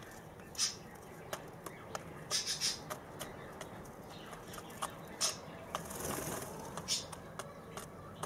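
A young white dove preening: soft feather rustles, light scratches and small clicks in short irregular bursts, with a longer rustle about six seconds in.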